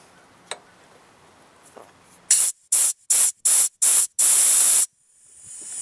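Compressed-air blow gun hissing in five short blasts and then one longer one. It is blown through the fuel line into a small-engine carburetor to clear out carb cleaner and gunk.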